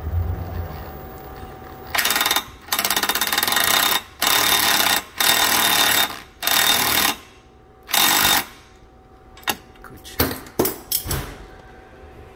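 A cordless power tool driving a socket on a long extension runs in six short bursts, with a fast hammering buzz, as it tightens a new starter's mounting bolt. A few light clicks of metal follow near the end.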